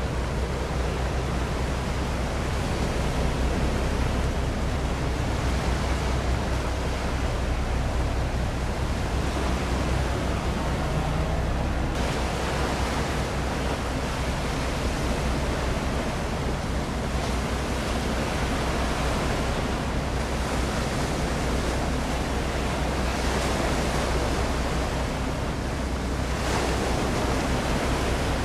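Steady wind and lapping sea-water noise, with a constant low hum underneath and no sudden sounds.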